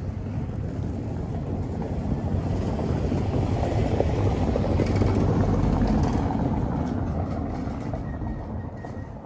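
A passing vehicle, a steady noise that grows louder to a peak around the middle and then fades away.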